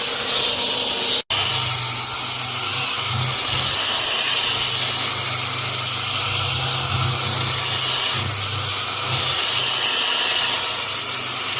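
Power sander running with sandpaper rubbing on a surface: a steady hiss over a low motor hum, broken for an instant about a second in.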